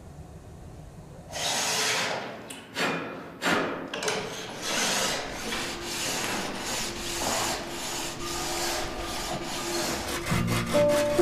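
A run of irregular scraping, swishing strokes of varying length, starting about a second and a half in. Music with a steady beat comes in near the end.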